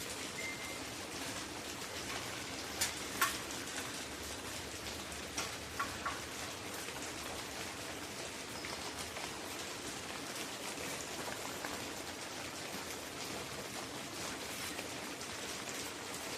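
Steady rain-like hiss, with a few short light clicks: two about three seconds in and three more between five and six seconds in.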